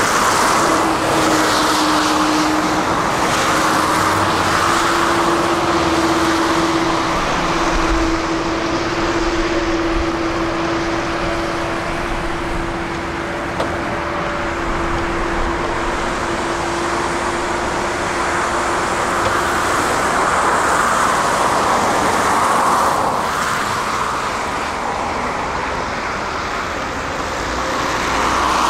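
Heavy diesel construction machinery running steadily under changing load, its engine noise swelling and easing every few seconds. A steady whine sounds over it from about a second in until about two-thirds of the way through.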